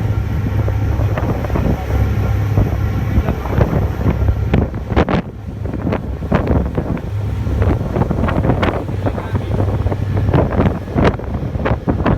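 Wind gusting against the microphone aboard a ferry, in irregular sharp buffets over a steady low rumble from the boat.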